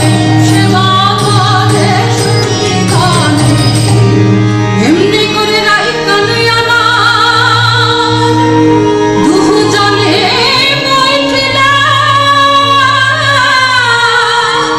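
Padabali Kirtan devotional song: singing with ornamented, wavering melodic lines over a steady low drone.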